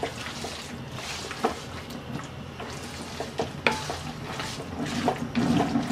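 A spoon stirring a thick, sticky jujube pickle in a metal pan, with scattered scrapes and knocks against the pan over a low sizzle.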